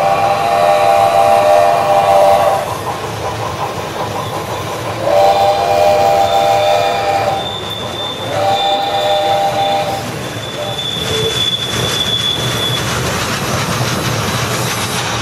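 HO-scale model steam locomotive's sound-system whistle blowing three long blasts, over the continuous rumble and clatter of the model train rolling past. A thin high squeal sounds twice in the second half.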